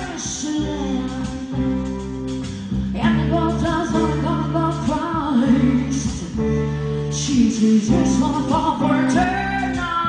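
Live band music: a woman singing lead over guitar, bass guitar and drums.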